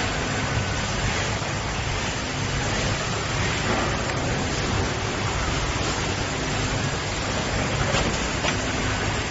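Packing machine running: a steady, dense mechanical noise with a few faint clicks.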